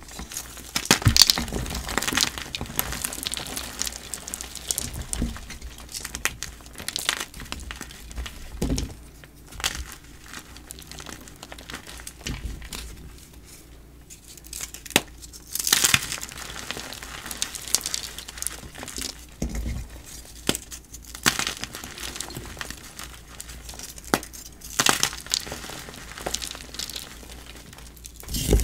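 Blocks of dyed gym chalk being crushed and crumbled, making a run of irregular crunches and crackles with louder clusters now and then.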